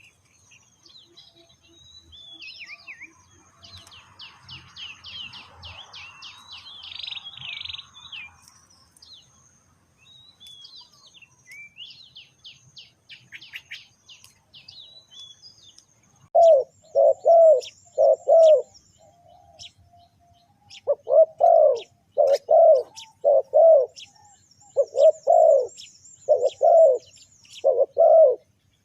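Small birds chirping with high, quick notes, then, from a little past halfway, a spotted dove cooing loudly in repeated series of low, rounded coo notes with short pauses between the series.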